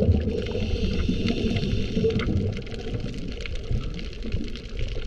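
Underwater sound picked up by a diving camera: a low gurgling rumble of water and bubbles that eases off about halfway through, with many faint scattered clicks.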